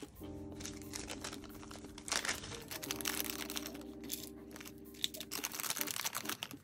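Plastic packaging crinkling and rustling in the hands as a box of plastic nail tips is handled, with irregular crunchy rustles, over steady soft background tones.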